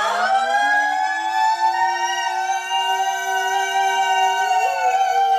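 Women singing a Korean traditional (pansori) vocalise. The voice slides up in pitch through about the first second, then holds a high, resonant nasal "eung" steadily, lifting slightly once more near the end.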